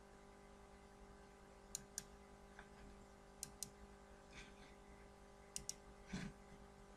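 Computer mouse clicks against near silence: three pairs of quick clicks, about two seconds apart.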